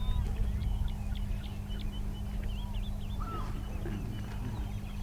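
Small birds chirping and twittering in short, scattered calls over a steady low hum.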